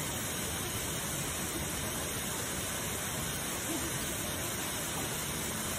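A waterfall's steady rush of falling water, an even hiss with no breaks.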